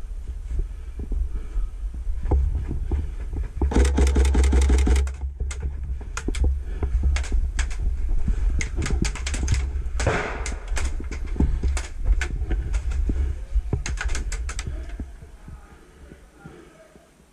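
Airsoft gun firing in rapid bursts of clicks: a long burst about four seconds in, more shots near the middle, and a short burst about fourteen seconds in. A steady low rumble runs underneath and fades near the end.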